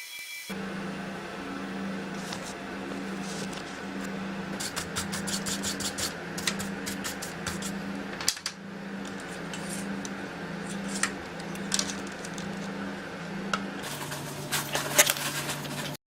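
Scattered small clicks and clinks of hard parts being handled, over a steady low hum that pulses about once a second. The clicking is loudest and densest near the end.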